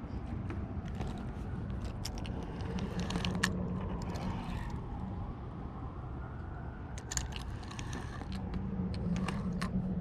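Fishing reel being cranked, its gears whirring in two spells with scattered sharp clicks.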